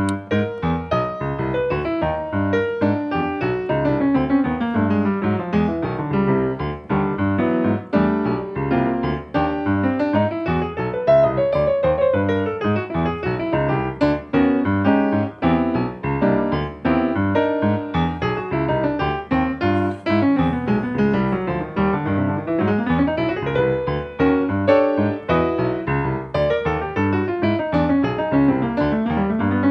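Solo piano improvisation: a dense, continuous stream of notes, with fast runs that sweep down and back up several times.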